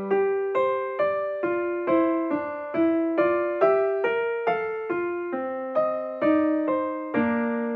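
Background music: a gentle piano melody of single notes, struck at a steady pace of about two a second, each note ringing and fading.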